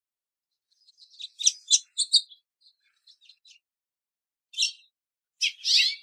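House finch calling: a quick run of sharp, high cheeping notes about a second in, a few faint notes after it, then two more loud cheeps near the end.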